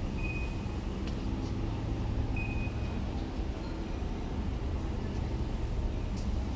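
Hypermarket background noise: a steady low rumble, with two short high electronic beeps about two seconds apart in the first half and a few sharp clicks.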